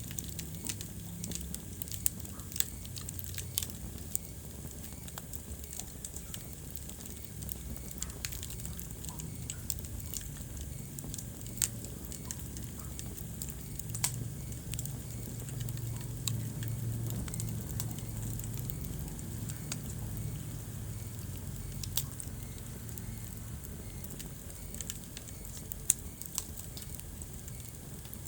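Wood fire crackling in a fireplace: a steady low rumble of flames with sharp pops and snaps at irregular intervals, a few of them much louder than the rest.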